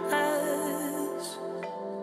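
Soft background music, a gentle slow song, getting quieter.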